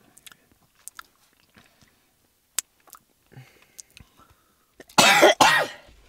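A man coughing hard twice in quick succession about five seconds in, set off by a mouthful of very hot chilli sauce. Before that there are only a few faint clicks and rustles.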